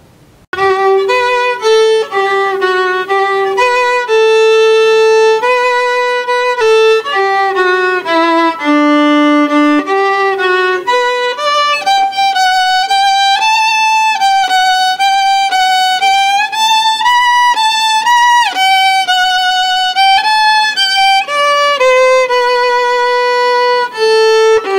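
Solo violin playing a slow melody, one note at a time, with vibrato on the held notes; it begins about half a second in.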